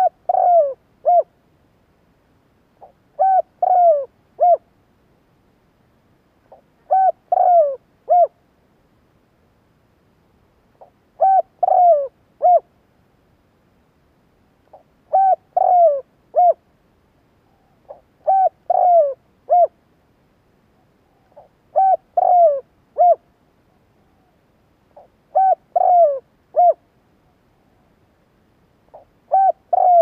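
Spotted dove cooing: the same phrase repeated about every three and a half seconds, a faint short lead note, then three or four low coos. It is the territorial call of a caged decoy bird, used to provoke wild doves.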